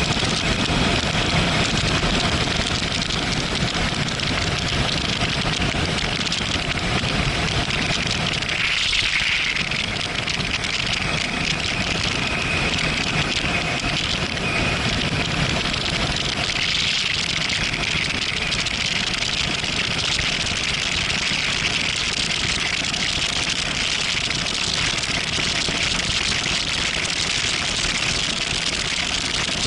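Steady rush of wind and road noise on a moving Yamaha MT-07 Tracer, with its 689 cc parallel-twin engine running underneath at cruising speed, still in its break-in period.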